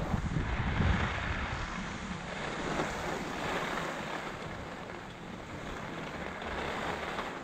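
Skis hissing and scraping over snow, with wind buffeting the action camera's microphone. The buffeting is strongest in the first second or so.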